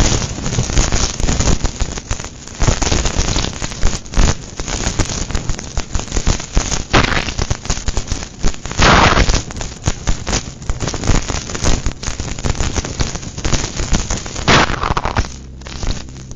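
Storm wind buffeting the microphone in gusts, a dense crackle of pops and rumbles. Music comes in near the end.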